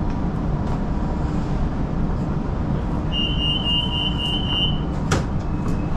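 Metro train running, heard inside the carriage as a steady low rumble. About halfway through, a high steady tone sounds for under two seconds, and a single sharp click comes near the end.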